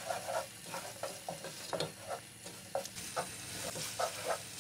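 Garlic-ginger paste sizzling as it fries in butter and oil, with a slotted wooden spatula scraping and stirring it around a metal pot in repeated short strokes over a steady hiss.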